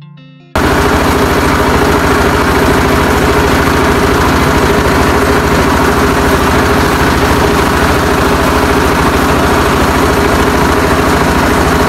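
A boat's engine running steadily under way, with water rushing and churning along the hull; it cuts in suddenly about half a second in.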